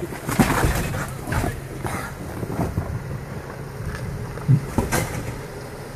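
Jeep Wrangler Unlimited Rubicon's engine running at low revs as it crawls over rocks, with scattered knocks and scrapes of the vehicle working over the stones.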